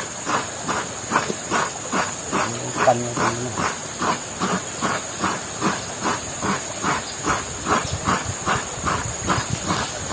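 Coconut being grated by hand on a kukur kelapa, a serrated iron blade fixed to a wooden log seat: a steady, rhythmic rasping, about three scrapes a second.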